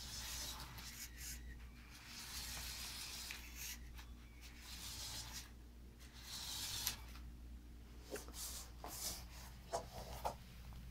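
LEGO Technic 8081 B-model car with Power Functions motors driving on a wooden floor: faint hissing, scraping stretches of noise that come and go, then a few sharp clicks near the end.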